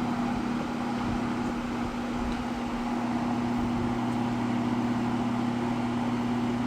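Happy Home window box fan running steadily: an electric motor hum under a constant rush of air from the blades. The owner finds it noisier than he remembers and puts the noise down to air buffeting on the blades.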